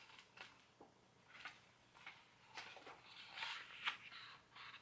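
Faint rustling of a picture book's paper pages as a page is turned and the book is handled: a few short, soft rustles.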